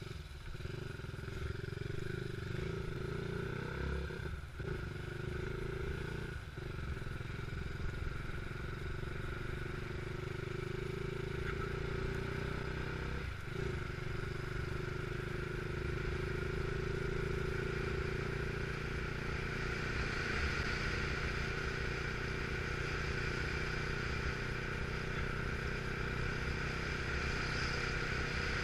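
Motorcycle engine running while riding, heard from an on-board camera, its note breaking briefly about three times in the first fourteen seconds. Wind and road noise grow stronger in the second half.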